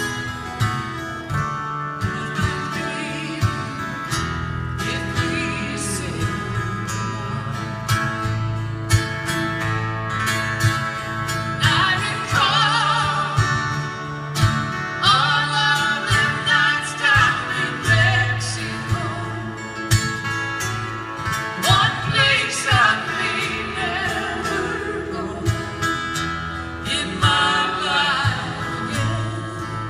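Live acoustic song: two guitars strumming and picking. A woman's lead vocal comes in about a third of the way through and carries the melody over them.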